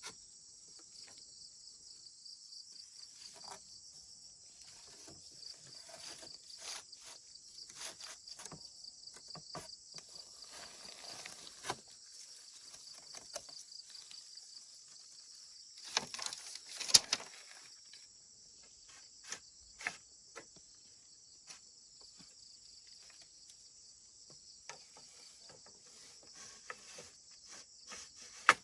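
Insects chirring steadily in a high, even band, with scattered light clicks and knocks over it; the loudest knocks come in a cluster about sixteen to seventeen seconds in.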